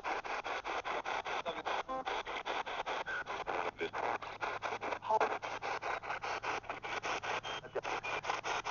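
P-SB7 spirit box scanning the AM/FM radio band: a steady run of choppy static bursts, several a second, as it jumps from station to station, with brief fragments of broadcast sound caught between them.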